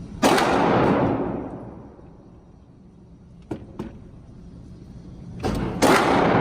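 Gunshots on an outdoor firing range: one shot near the start, two small clicks a few seconds later, then two more shots about a third of a second apart near the end. Each shot is followed by a long echo that dies away over about a second and a half.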